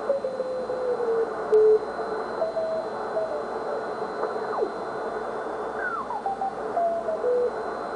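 Ten-Tec T1380 QRP transceiver tuned across the 80-metre band. There is a steady hiss of band noise, and Morse code signals come through as whistling tones that slide and step in pitch as the dial moves. The loudest tone comes briefly about a second and a half in.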